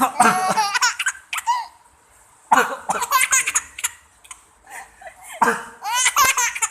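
A baby laughing hard in three bursts with short quiet gaps between, set off by someone's pretend coughing.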